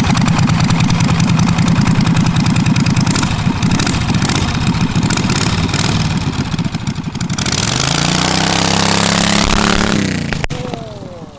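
Vanguard engine on a drift quad running hard at full throttle. Its pitch climbs a little after about seven and a half seconds, then drops and fades near the end as the throttle comes off.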